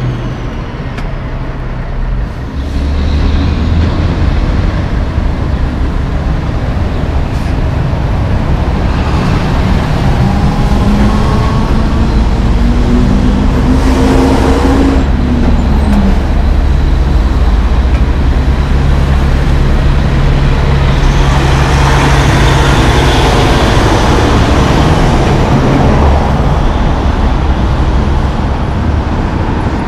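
City street traffic: heavy diesel trucks and cars passing with a steady low engine hum. About midway, one engine's pitch rises then falls as it accelerates, and a louder rush of tyres and engine passes about two-thirds through.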